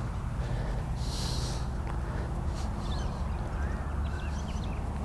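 Outdoor ambience between golf shots: a steady low rumble, a short breathy hiss, like a sniff, about a second in, and faint bird chirps later on.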